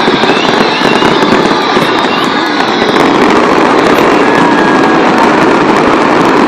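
Fireworks going off in a dense, continuous barrage, many bangs and crackles overlapping with no gaps between them.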